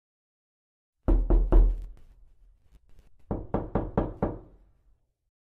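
Knocking on a door: three heavy knocks, a short pause, then five quicker knocks.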